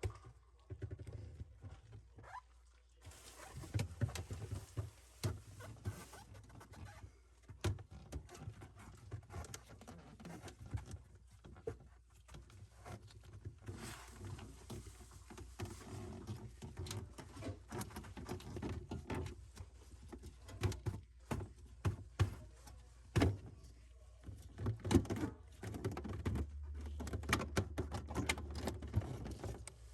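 Irregular knocks, taps and clunks of objects being handled, scattered unevenly with a few louder knocks, over a low steady hum.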